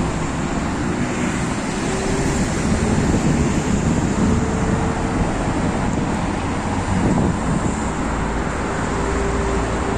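City street traffic: a steady wash of cars driving past on a multi-lane avenue, engine and tyre noise without any single standout event.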